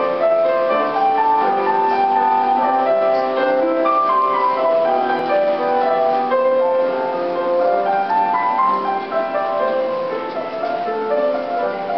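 Background music: a piano melody moving over sustained chords at a steady level.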